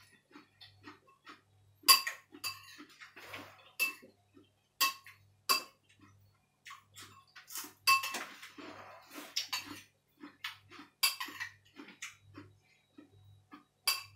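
Metal spoon and fork clinking and scraping against a ceramic bowl of curry noodles while eating. About a dozen sharp clinks come at uneven intervals, the loudest about two seconds in and near the middle, with a stretch of scraping just after that.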